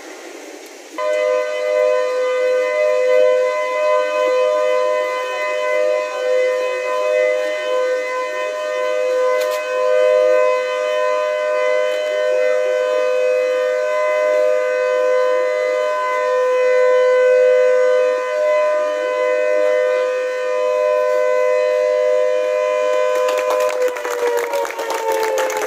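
Siren sounding a steady, loud two-pitched tone from about a second in, then falling in pitch as it winds down near the end while applause breaks out.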